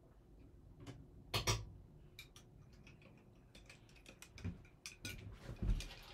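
Irregular light clicks and taps of small objects being handled at a desk, with a couple of louder knocks about a second and a half in and a few dull thuds near the end.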